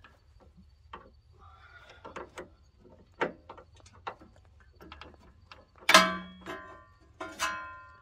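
Metal clicks and knocks of hydraulic hose quick-coupler fittings being handled and pushed into a tractor's hydraulic couplers, ending in two loud ringing metallic clanks about six and seven seconds in.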